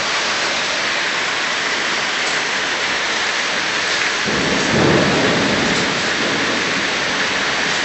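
Steady rain falling, with a low rumble of thunder rising about halfway through and fading over a second or two.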